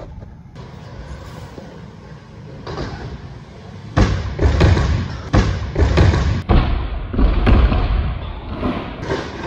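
BMX bike and rider crashing onto a resi foam landing ramp on a failed flare: about four seconds in, a run of heavy thumps and slams begins and goes on for several seconds as the bike and rider hit the ramp and tumble down it.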